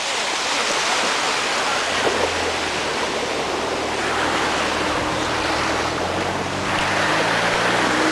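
Floodwater rushing over a street after a sudden thunderstorm, a steady loud wash of water noise. A low steady hum joins underneath about two seconds in.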